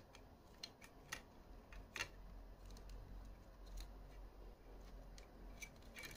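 Faint, scattered plastic clicks and taps as a VHS tape reel is handled and seated back into the opened plastic cassette shell, the strongest click about two seconds in.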